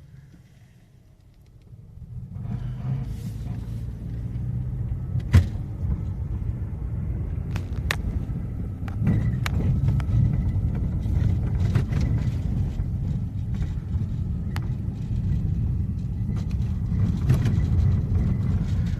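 2006 Nissan Xterra pulling away and accelerating through the gears of its freshly refilled automatic transmission: low engine and road rumble that starts about two seconds in and builds, stepping up in level partway through, with a few sharp clicks. The transmission shifts very smoothly.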